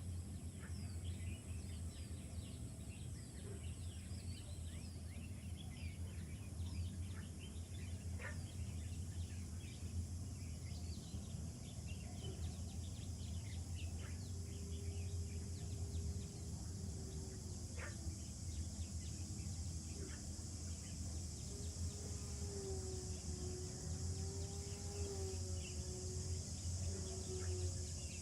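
Outdoor ambience: birds chirping over a steady low hum and a high hiss. About halfway through, a faint wavering steady tone joins in.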